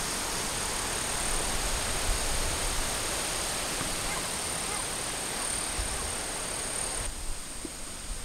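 Woodland outdoor ambience: a steady hiss with a thin, high-pitched continuous drone over it, and low gusts of wind rumbling on the microphone. The sound changes and thins about seven seconds in.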